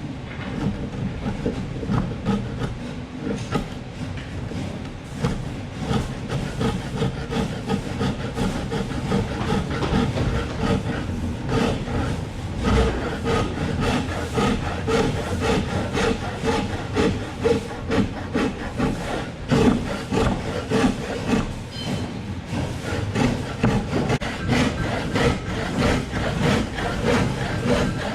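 Wood being turned on a foot-powered spring pole lathe: a cutting tool scraping and shaving the spinning work in repeated strokes, with knocks from the treadle and pole.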